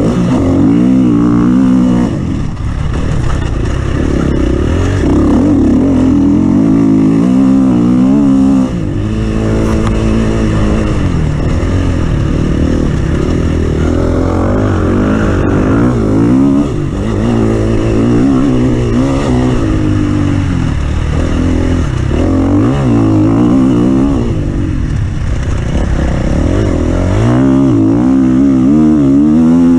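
Offroad vehicle's engine running hard, revving up and down repeatedly as it is driven over the course, with brief drops in revs.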